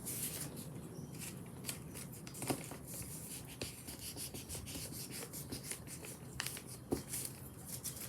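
A spoon rubbing over a crocus petal on paper to press out its colour: a scatter of irregular small clicks and scrapes.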